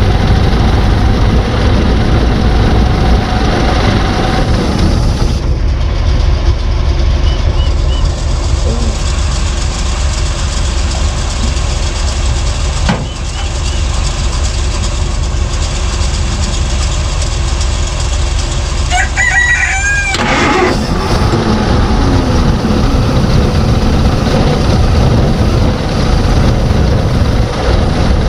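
1949 Plymouth Special Deluxe's flathead six running steadily at idle, quietly and without misfiring, on its first run after years parked. A rooster crows once, about two-thirds of the way through.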